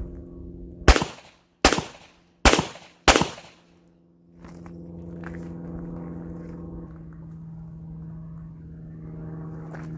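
Four handgun shots fired in quick succession, a little under a second apart, during a timed qualification string, followed by a steady low hum.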